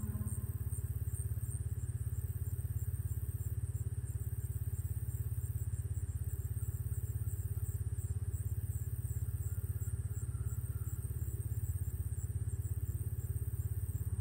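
Steady low rumble of an engine running, with a fast, even pulse.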